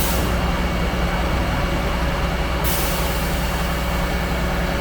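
Concrete pump truck's diesel engine running steadily under load. A brief hiss sounds at the start, and a steady hiss comes in about two and a half seconds in.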